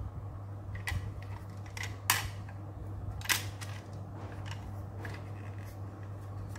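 A small toy car being handled and set down on a tiled floor: scattered light clicks, with two sharper knocks about two and three seconds in.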